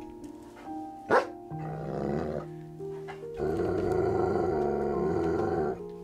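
A dog growling over background music, in two rough stretches, the second longer and louder and cutting off abruptly near the end, with a short sharp sound about a second in.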